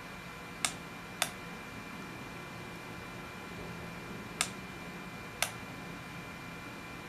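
Four sharp clicks of a button on a motorized display turntable's variable-speed control, pressed while trying to slow it down: two in quick succession near the start, two more about four and five seconds in. A faint steady hum runs underneath.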